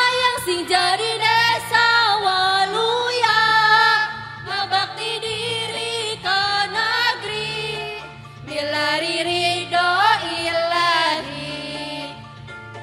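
Women's choir singing a Sundanese song over backing music. The singing stops near the end, leaving the backing music quieter.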